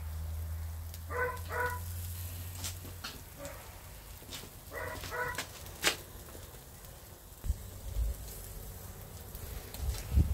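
A dog barking in quick pairs, two short barks about a second in and two more about five seconds in. A low hum runs under the first three seconds, and there are a few scattered sharp clicks.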